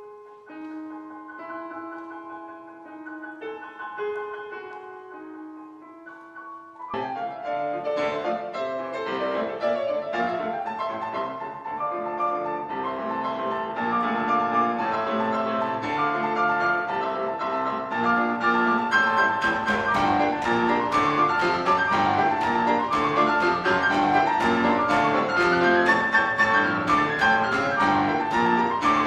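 Grand piano played solo: a quiet, sparse melody in the upper register, then about seven seconds in the full keyboard enters with low notes and the playing grows louder, and from about twenty seconds it gets louder still with dense, rapid notes.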